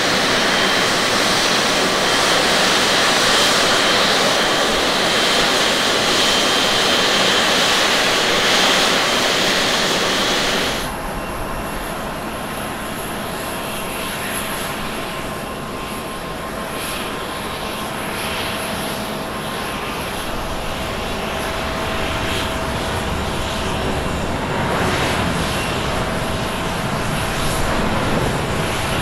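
Boeing 787-9's Rolls-Royce Trent 1000 turbofans at takeoff power during the takeoff roll: a loud, even rush of jet noise with a steady high whine. About 11 s in the sound cuts abruptly to a quieter, more distant take of the same takeoff, with a low rumble building near the end.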